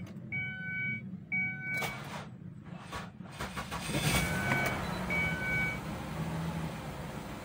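Ford Escape V6 engine running with a misfire on cylinders 3 and 5 (codes P0303 and P0305), with a steady low hum. A dashboard warning chime beeps repeatedly in the first two seconds and again about five seconds in. The sound gets louder and noisier around four seconds in.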